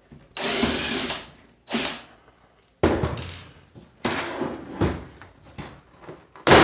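Screwdriver working a stubborn screw in the plastic case of a Casio Casiotone CT-360 keyboard: several short noisy bursts, each under a second, with a sharp knock at the end.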